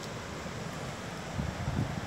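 Wind on the microphone, a steady rush with a few low bumps in the second half.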